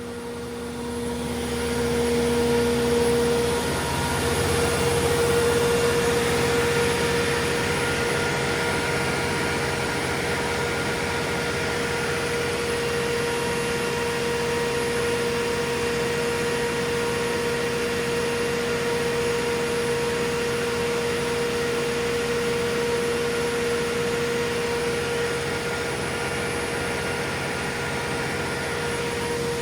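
The MTU 12V1600G80S twelve-cylinder diesel engine of a 600 kW generator set running at steady speed, a broad hum with a steady whine over it. It grows louder about two seconds in, then holds even.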